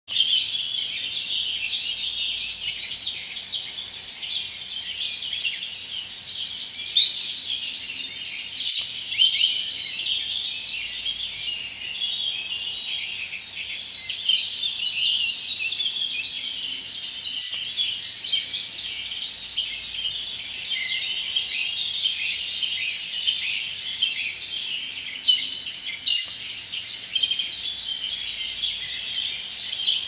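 Many birds chirping and calling at once in a dense, unbroken chorus of high-pitched chirps.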